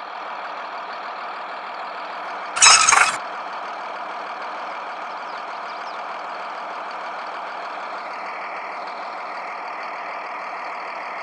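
A motor runs steadily. About two and a half seconds in, a sudden loud hiss lasts about half a second.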